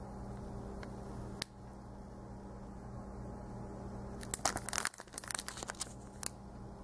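Clear cellophane packaging on a boxed memo pad crinkling as it is handled and turned over. The crinkling comes in a burst of crackles from about four to six seconds in, with one sharp click earlier, over a steady low hum.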